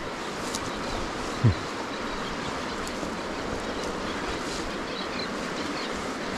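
Steady rush of a shallow, fast-flowing river. About one and a half seconds in there is a single brief low thump that drops in pitch.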